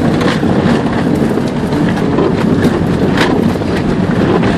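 Škoda Felicia driven hard on a rough grass and dirt track, heard from inside the cabin: loud engine and tyre noise with repeated knocks and rattles as the car bounces over the bumps.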